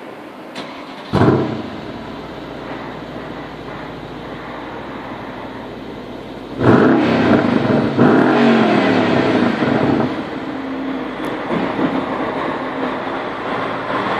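Mercedes-Benz E63 AMG's twin-turbo V8 heard through its quad exhaust: it starts about a second in with a loud flare, settles to a steady idle, then is revved hard several times from about halfway through.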